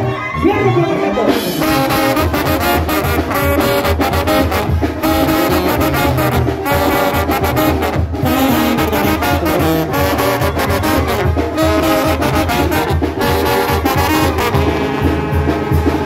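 A banda sinaloense trombone section playing a melody together, over a tuba bass line and a steady drum beat.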